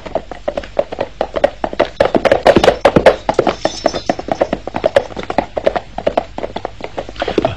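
Hoofbeats of several horses galloping, a fast, irregular clatter of hooves that runs without a break.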